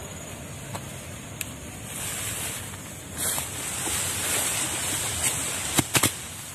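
Wind buffeting the microphone and tall grass rustling as people move through it. The rustling grows a little louder about halfway through, with a few sharp clicks near the end.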